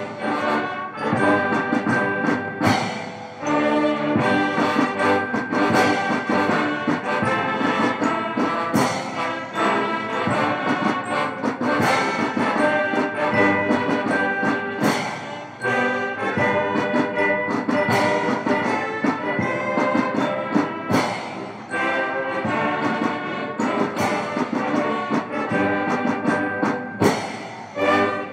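Military brass band playing a piece during the salute at a parade, with trombones and trumpets to the fore and sharp drum strikes through it.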